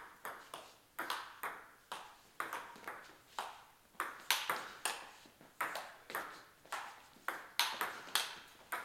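Table tennis rally: a celluloid-style ball clicking alternately off the table and the rubber-faced bats of an attacking short-pips player and a long-pips defender, about two to three sharp clicks a second, each echoing briefly in the hall.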